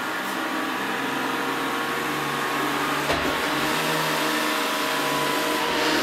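Samsung Navibot robot vacuum running as it drives off a rug onto tile: a steady whir of its motor and brushes with a faint whine. There is a single sharp click about three seconds in.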